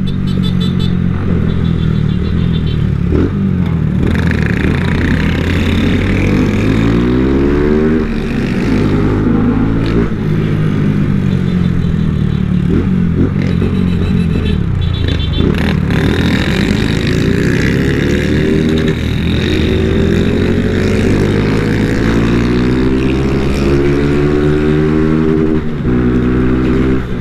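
Honda CG 160 Titan's single-cylinder four-stroke engine under way. Its pitch climbs as it accelerates and drops back at gear changes, several times over.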